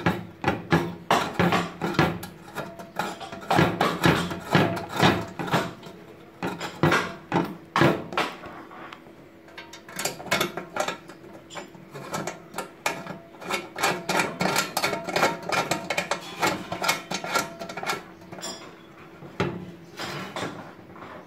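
Irregular clicks, taps and knocks of an MCB distribution box being handled, fingers working the screws on its edge and turning the enclosure over.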